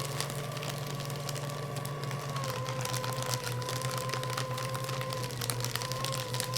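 Electric paper shredder running under load, its motor whining steadily while the cutters chew through a thick stack of paper with dense crackling and tearing. The motor's pitch sags slightly about two and a half seconds in.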